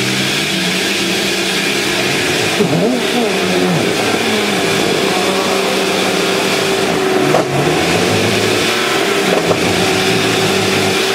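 Range Rover engine running steadily under load off-road. Its pitch wavers briefly about three seconds in, and there are two short knocks later on.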